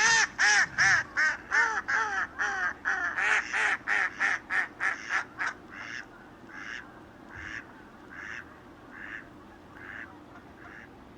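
A bird calling: a rapid run of about eighteen loud, arched notes, then slower and fainter single notes that die away near the end.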